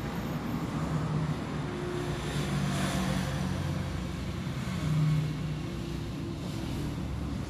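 Steady low background rumble, with a brief swell of hiss about three seconds in.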